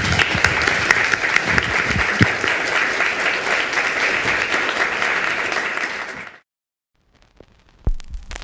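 Audience applauding steadily; the applause cuts off suddenly about six seconds in, followed by a moment of silence and then a faint low thud and hum near the end.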